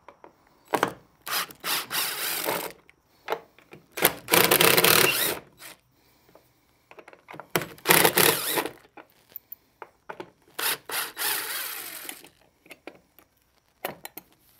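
Cordless DeWalt 20V impact driver running in about five bursts of one to two seconds each, turning the screws of a metal barrel-bolt latch on a wooden door. There are short clicks between the bursts.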